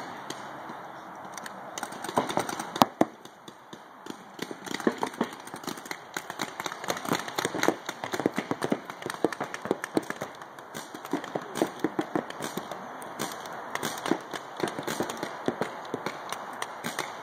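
Paintball markers firing from several players: many sharp pops in irregular volleys, sparse at first with one louder shot about three seconds in, then almost constant rapid shooting from about four seconds on.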